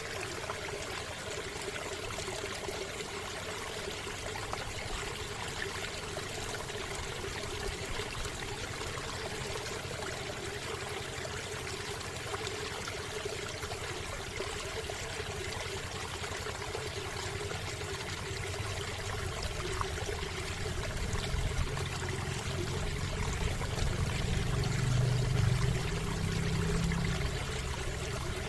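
River water flowing in a steady, continuous wash. A low rumble builds up in the last several seconds.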